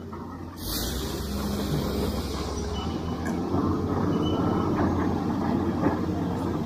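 Steady low rumbling noise, growing louder about half a second in and holding on.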